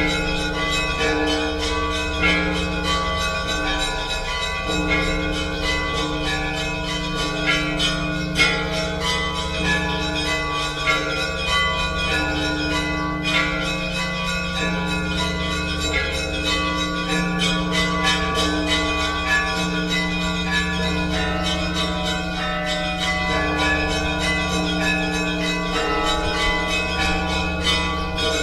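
Orthodox church bells ringing in a continuous peal. Many bells of different pitches are struck in quick succession, and their tones ring on and overlap.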